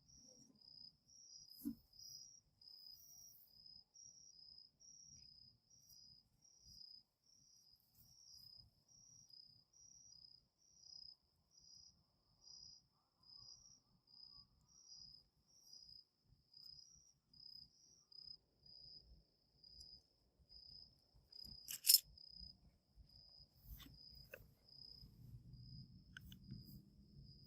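Faint, steady chirping of crickets, about two short high chirps a second, at two slightly different pitches. A single sharp click about 22 seconds in is the loudest sound.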